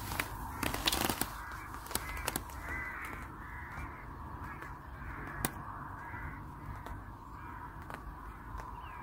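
Crows cawing repeatedly, with a few sharp taps in the first second.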